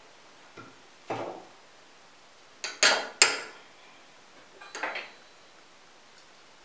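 Metal spoon clinking against a small stainless-steel cup as a spoonful of lard is knocked off into it: a handful of sharp clinks, the loudest pair about three seconds in, and a last cluster near five seconds.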